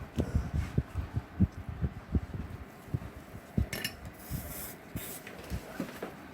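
Irregular soft low thumps and knocks of small objects being handled, with two brief hissy bursts near the middle.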